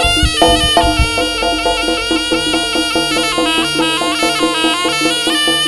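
Live jaranan music: a nasal slompret (Javanese reed shawm) playing a stepping melody over gamelan percussion, with drum strokes in the first second.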